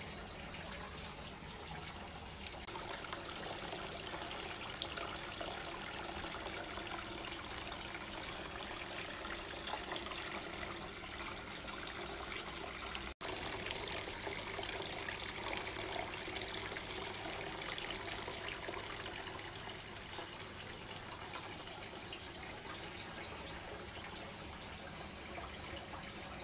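Tiered bowl cascade fountain running: water trickling and splashing steadily from bowl to bowl and into the basin at the foot, with a momentary dropout about halfway through.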